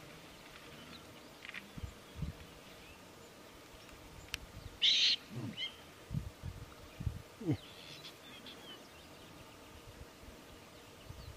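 Young African bull elephant taking a dust bath, blowing dirt over its back: a short hiss about five seconds in, with scattered low thuds and a few short low calls falling in pitch. Faint bird chirps come through.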